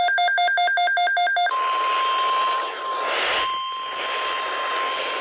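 A rapid two-tone alert beeping, high and low tones alternating about four to five times a second, for about the first second and a half. It then switches to the steady single-pitch NOAA Weather Radio warning alarm tone (1050 Hz) over radio static, with a brief swell of static about three seconds in.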